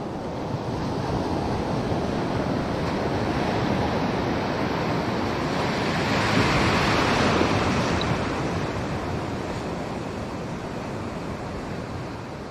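Sea surf washing over the shore, a wave swelling to its loudest a little past halfway and then slowly fading.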